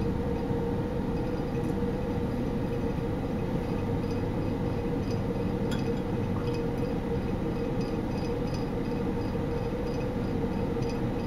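Steady mechanical hum of a running motor or fan, with a few faint glass clinks as a small glass beaker of ammonia solution is tipped into a beaker of copper sulfate solution.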